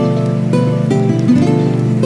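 Background music: a plucked-string tune of quick, stepping notes over a steady accompaniment.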